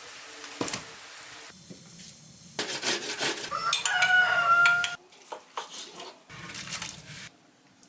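A rooster crowing once, about four seconds in, the loudest sound here. Around it are short, abruptly changing snippets of clattering pots and utensils and other farmyard sounds.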